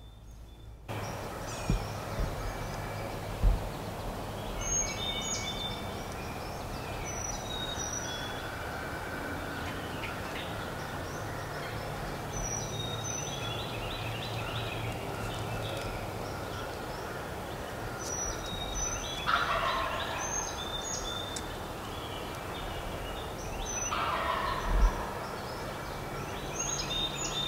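A wild turkey gobbler gobbling repeatedly from a distance, loudest twice in the second half, while small songbirds chirp. A few short low thumps near the start.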